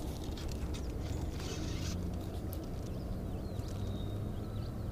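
Steady low rumble of wind and water at the chest-camera microphone, with a brief rustle of fly line being handled about one and a half seconds in and a few faint bird chirps later on.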